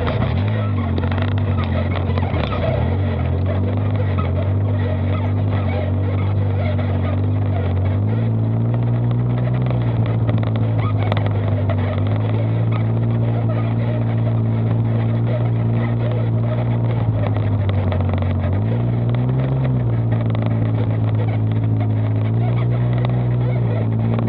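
Polaris side-by-side off-road vehicle's engine heard from inside the open cab while driving on a dirt track. The engine note falls and rises with the throttle: lower at first, climbing about eight seconds in, and dipping and picking up again briefly near the end.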